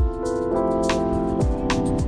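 Background music with a steady beat: held chords that change twice, over deep regular thumps and crisp ticks.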